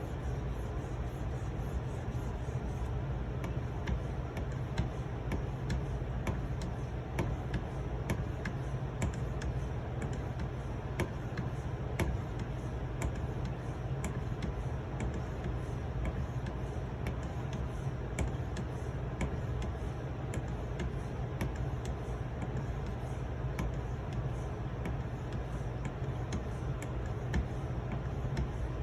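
A 4000-grit Edge Pro sharpening stone being stroked along the edge of a Benchmade Nim Cub's steel blade: soft scraping with frequent small, irregular clicks over a steady low hum.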